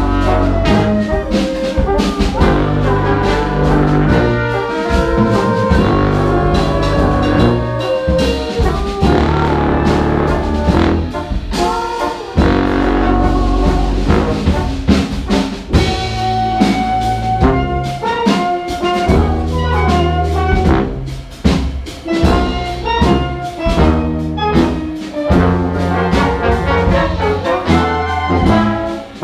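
Live brass-heavy ensemble playing: flutes, saxophones, trombones, trumpets and tuba together over a drum kit, with sustained low tuba bass notes under the melody.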